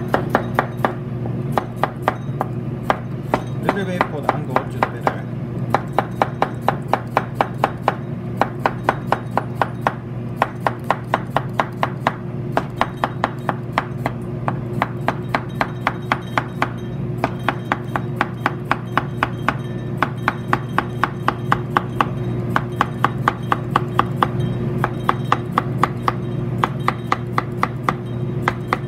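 Kitchen knife slicing a cucumber into thin rounds on a plastic cutting board: quick, even taps of the blade on the board, about four a second, in runs with short pauses. A steady low hum runs underneath.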